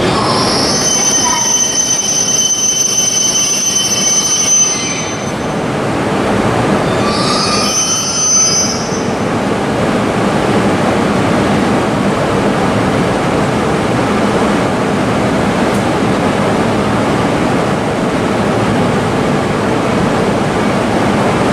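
E6 series shinkansen braking to a stop at a platform, its brakes and wheels squealing in high thin tones twice within the first nine seconds. After that it stands at the platform with a steady noisy hum from its running equipment.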